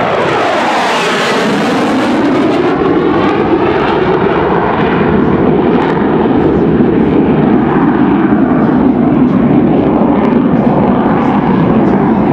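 Jet noise from a Lockheed F-104 Starfighter's J79 turbojet as it flies past in a display. It is loud and steady, with a sweep falling in pitch in the first second or two as the jet passes.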